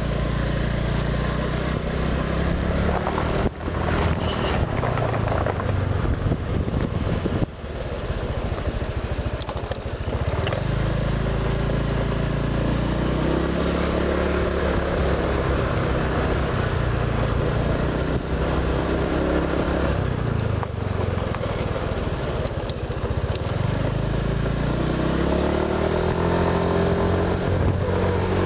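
Honda Vario 125 PGM-FI scooter's single-cylinder engine running under way, its note rising and falling with the throttle and climbing in pitch twice, about twelve seconds in and again near the end. It has an aftermarket ignition coil and NGK spark plug fitted, which the owner thinks has cured the 'snore' noise, though it runs a bit noisier.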